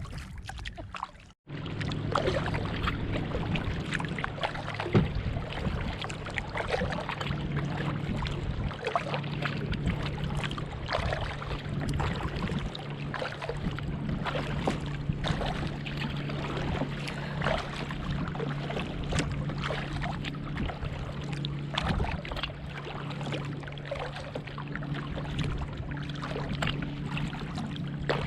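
Water splashing and rushing along a moving kayak's hull, with a steady low hum underneath. The sound cuts out briefly about a second in, then runs on evenly.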